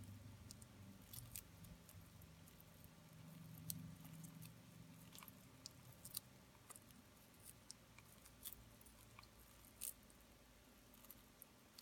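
Faint, irregular crunching clicks of a northern blue-tongued skink chewing a dubia roach. A low hum runs underneath and fades out about halfway.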